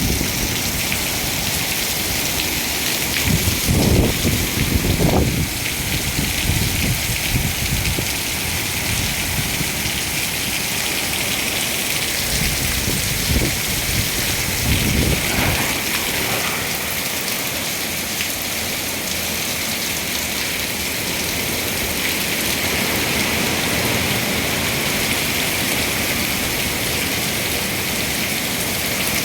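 Steady heavy rain, an even hiss throughout. A few low rumbles swell up about three to five seconds in and again around thirteen to sixteen seconds in.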